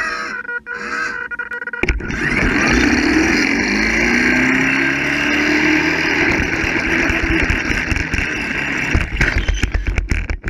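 Zip wire camera buggy's pulleys running along the line, heard from the camera riding on it: a loud rushing rumble that starts suddenly about two seconds in, with a whirring tone that rises in pitch for a couple of seconds and choppy knocks near the end.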